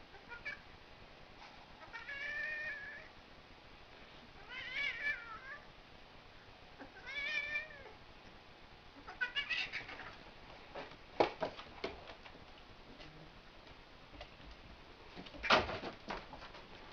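Domestic cat pinned under a bear cub, giving four drawn-out yowls with wavering pitch, a few seconds apart. After them come several sharp knocks, the loudest shortly before the end.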